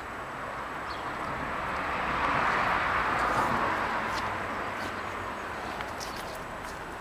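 A road vehicle passing by: a rushing noise that swells to a peak about three seconds in and then fades away.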